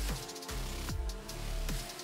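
Electronic background music with a heavy bass line and a repeating drum beat, deep falling kick-like hits a little under a second apart.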